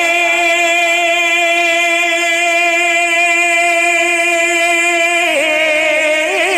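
A solo voice sings an Urdu devotional verse with no instruments, holding one long note with a slight vibrato for about five seconds. Near the end it bends into a short ornamented run.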